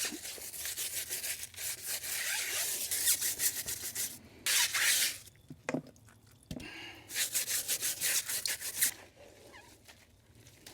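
A new motorcycle wheel and tire being scrubbed clean by hand, quick rubbing strokes in three spells with short pauses between, the longest at the start.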